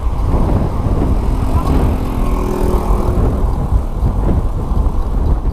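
Wind buffeting the microphone of a handlebar-mounted camera on a moving road bike, a steady low rumble mixed with tyre noise on the road.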